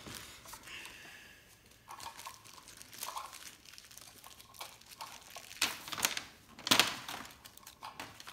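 Plastic toy packaging and small plastic parts being handled: crinkling and rustling with scattered clicks, the loudest bursts about five and a half to seven seconds in.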